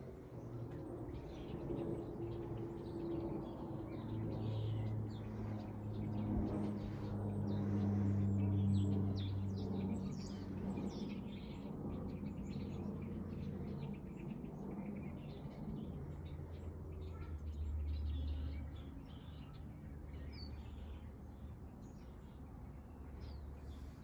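Small birds chirping repeatedly in quick short notes over a low steady hum that swells for a few seconds near the middle.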